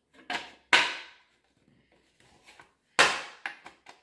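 Hard plastic Playmobil castle tower pieces clacking as they are fitted together: two sharp clacks in the first second, a few faint knocks, then another loud clack about three seconds in.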